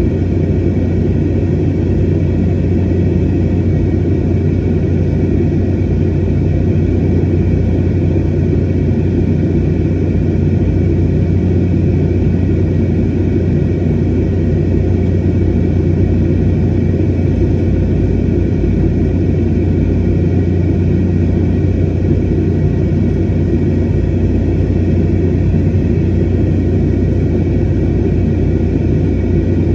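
Steady airliner cabin noise in flight: the even low rumble of the jet engines and airflow, with a constant hum and no changes.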